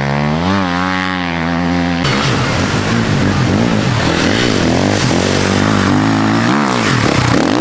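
Enduro dirt bike engines revving hard through deep sand, the pitch climbing and falling with the throttle and gear changes. About two seconds in the sound switches to another bike, its engine note swooping up and down repeatedly.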